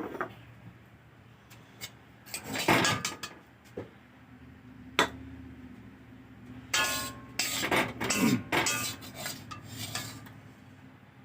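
Metal kitchen utensils clinking and scraping against cookware in several separate bouts, with one sharp clack about halfway through.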